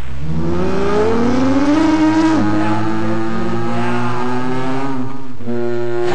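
Layered, sustained pitched drone tones, one sliding upward in pitch over the first two seconds and then held steady, in an experimental sound piece.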